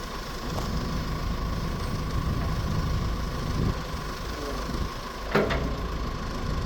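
1996 CAT 436B backhoe loader's diesel engine running under hydraulic load as the backhoe swings side to side, with a steady high tone over the low rumble. A sharp knock about five seconds in.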